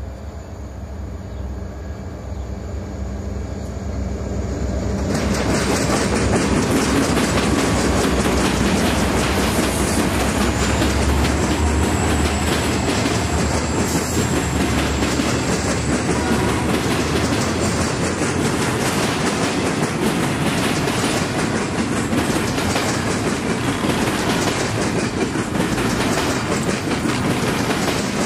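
Diesel freight train approaching with a rising locomotive engine hum, then passing close by from about five seconds in: a loud, steady rumble of EMD diesel locomotives and the train's wheels over the track, with a faint high squeal for a few seconds in the middle.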